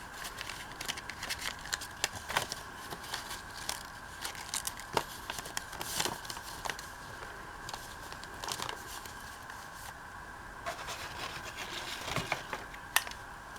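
Paper being handled and folded over, rustling and crinkling in irregular small clicks and crackles.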